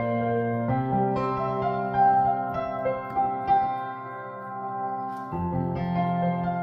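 Instrumental music without singing: piano or keyboard holding sustained chords, changing chord twice, about a second in and near the end.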